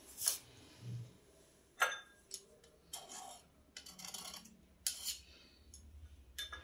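Handling noise: a scattered series of short clicks, taps and brief rubbing sounds, about seven in all, fairly faint.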